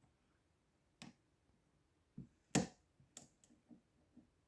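Metal clicks of a hook pick working the pin tumblers of a Zeiss Ikon padlock under tension: about six sharp, separate clicks, the loudest about two and a half seconds in.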